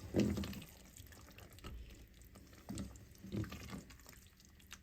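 Spoon stirring a pot of thick chili: a few wet, sloshing strokes.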